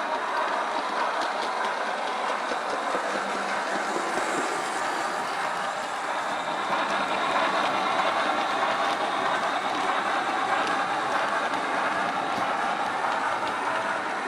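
Digital steam sound from a LokSound v5 decoder, played through a small speaker in the tender of a Hornby LMS 8F OO gauge model locomotive as it runs. It is a steady hissing steam-locomotive sound with faint ticks, swelling slightly about eight seconds in.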